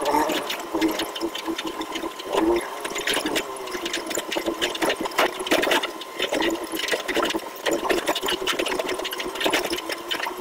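Off-road vehicle engine running and revving unevenly, its pitch rising and falling, over constant sharp clicks and rattles.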